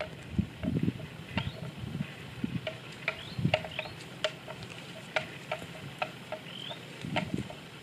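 Water buffalo grazing: irregular crisp tearing and crunching as grass is cropped and chewed, with a few dull low thuds. A few faint short rising chirps sound now and then.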